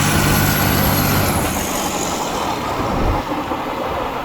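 Diesel truck engine running loud, with a low steady hum and a thin high whistle that glides up and down at first. The hum drops away into a rougher noise about a second and a half in.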